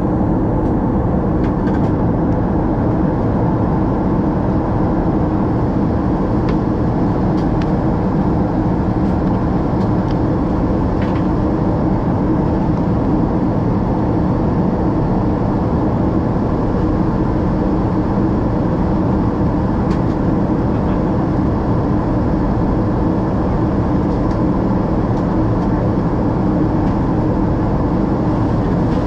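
Steady cabin noise of a Boeing 777-200ER in descent: engine drone and rushing air heard inside the cabin from a window seat beside the engine, even throughout.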